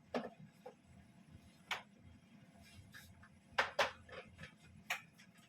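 A few sharp clinks and knocks of a kitchen utensil against cookware, irregularly spaced, with two close together about three and a half seconds in.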